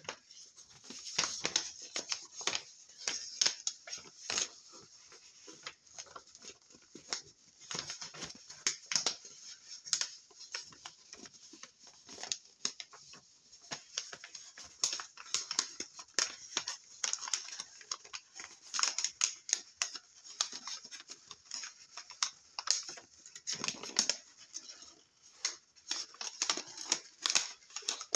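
A sheet of paper being folded and creased by hand for origami: irregular crinkling and rustling made of many quick, sharp crackles.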